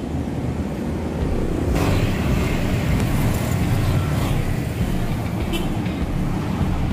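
Road traffic on a busy street: a steady rumble of passing cars and motorbikes.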